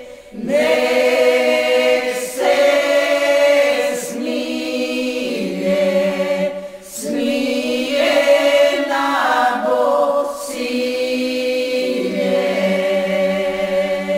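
Unaccompanied group singing of a traditional Serbian folk song from Šumadija, several voices in parts. Long held phrases are broken by short breaths, and the last phrase is drawn out long.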